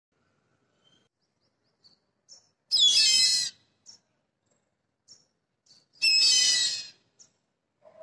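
Black kite calling twice, about three seconds apart, each call a high whistling cry about a second long that falls in pitch at its start. Short faint chirps come between the calls.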